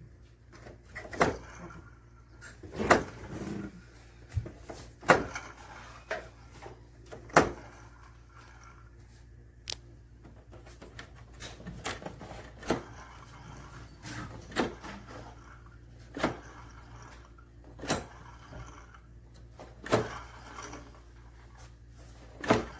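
Irregular sharp clicks and knocks of tools and plastic and metal parts being handled as the blower motor is taken out of an air conditioner's indoor unit, over a steady low hum.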